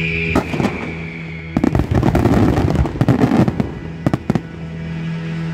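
Aerial fireworks going off: a dense run of bangs and crackling from about a second and a half in, ending with a few sharp reports, over music playing throughout.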